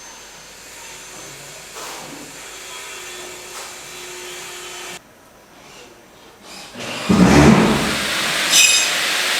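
Construction site sound: a low, steady mix of site noise for about five seconds, then, after a sudden break, a loud power tool cutting, with high wavering squeals near the end.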